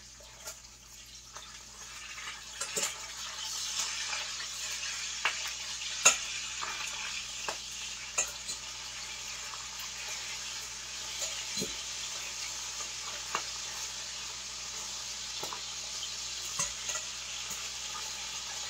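Bacon frying in a pan: a steady sizzle that builds over the first few seconds, with scattered sharp pops and clicks. The burner is set too high.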